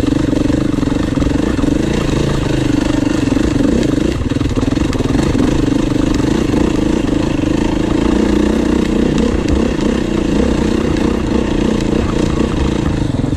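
2021 Beta 390 RR-S dirt bike's four-stroke single-cylinder engine running steadily under way on a dirt trail, its note wavering a little with the throttle.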